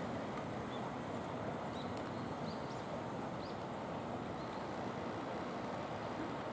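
Steady outdoor background noise: an even, low rumble with no engine beat or pitch, with a few faint, short high chirps in the first few seconds.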